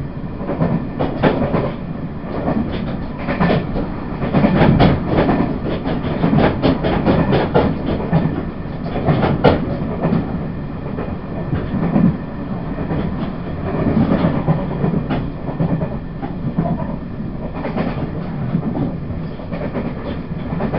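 Onboard running sound of a Taiwan Railway push-pull Tze-Chiang express (E1000 series) under way: a steady rumble of wheels on rail, with irregular clacks and knocks from the wheels and bogies.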